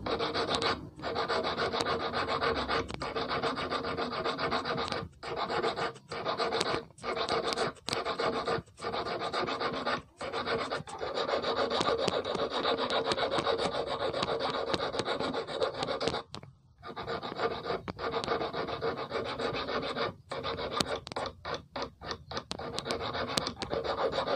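A slim steel hand file rasping back and forth across the tip of a brass-wire eel hook. It runs in long stretches of strokes, with short breaks between them and a longer pause about two-thirds of the way through.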